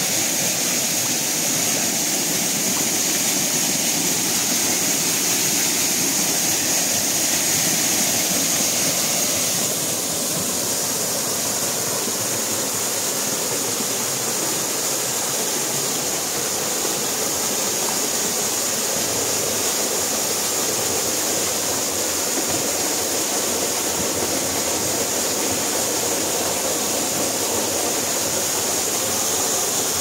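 Waterfall pouring into a plunge pool: a steady rush of falling water. The rush drops slightly and changes character about ten seconds in.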